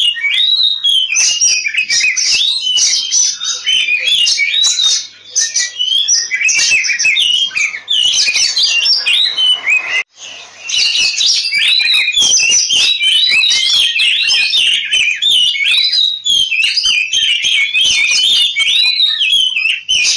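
Oriental magpie-robin (kacer) singing a fast, unbroken stream of varied whistles and rasping notes, the agitated 'ngobra' song of a bird in fighting mood. The song breaks off for an instant about halfway through, then carries on.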